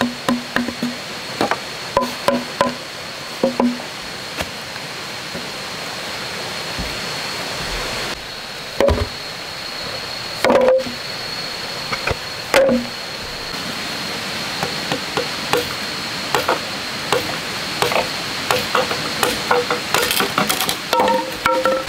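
A machete chopping and notching green bamboo, each blow a hollow knock that rings briefly. There are quick runs of strikes at the start, a few heavier single blows around the middle, and a dense series of lighter, quicker cuts in the last several seconds.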